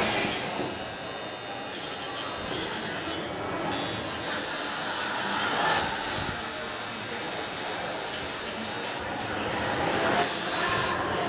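Tattoo machine buzzing in stretches as it works on skin, stopping briefly about three, five and nine seconds in and starting again each time.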